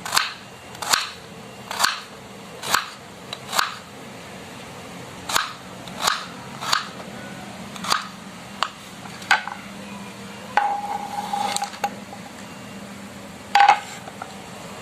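Kitchen knife cutting a carrot on a cutting board: sharp knocks of the blade on the board about once a second, a short rasping scrape a little past the middle, and one louder knock near the end.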